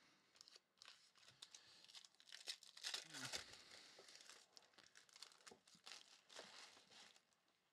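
Foil trading-card pack being torn open and its wrapper crinkled as the cards are pulled out: a faint, uneven rustle with small crackles, busiest in the middle.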